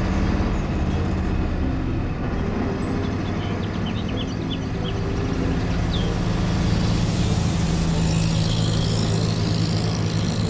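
Truck engine running steadily, with a hiss building near the end.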